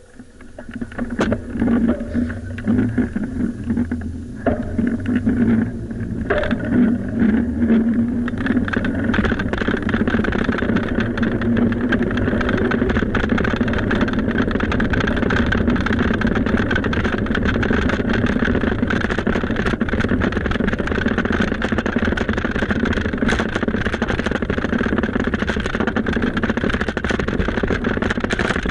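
Steady rushing wind noise on the microphone of a moving bicycle, with road and tyre rumble; it is uneven for the first several seconds, then settles into an even rush.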